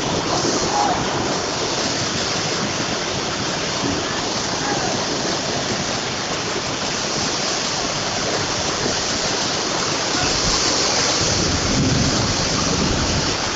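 Heavy rain pouring steadily, a dense even hiss. A low rumbling swell rises for a couple of seconds about ten seconds in.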